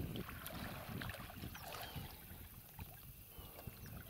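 Faint splashes and small knocks of paddles worked in the water beside an inflatable rubber boat, over a low rumble of wind on the microphone.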